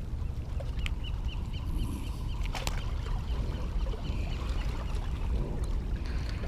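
Steady low wind rumble on the microphone. About a second in comes a quick run of short, high, evenly spaced chirps, roughly five a second, with a few faint clicks near the end of that run.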